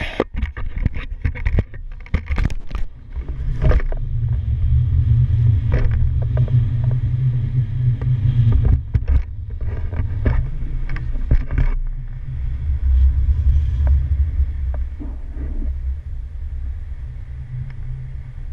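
Wind rushing over an action camera's microphone in paraglider flight: a loud, gusty low rumble, with scattered clicks and knocks during the first twelve seconds or so.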